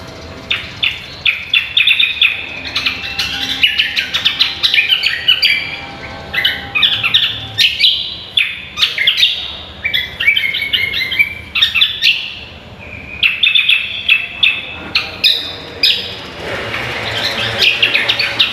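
Greater green leafbird (cucak kombo) singing: fast, varied chirps and whistles in bursts of a few seconds, broken by brief pauses.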